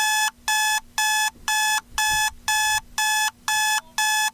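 Smartphone alarm beeping in an even run of short electronic beeps, about two a second.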